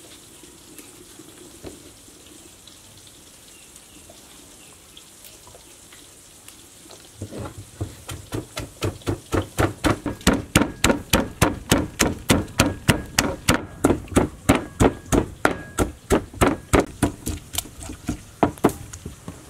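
Wooden pestle pounding garlic and red chilies in a mortar: steady thuds about three a second, starting about seven seconds in and pausing briefly near the end.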